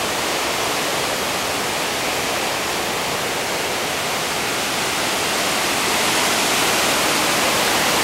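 Steady rushing roar of the Tad Somphamit waterfall's Mekong rapids pouring over rock ledges, growing a little louder about six seconds in.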